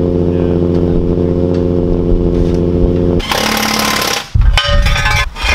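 An engine idling steadily. About three seconds in, it gives way to an impact wrench rattling on a wheel's lug nuts in three short bursts with brief pauses between them.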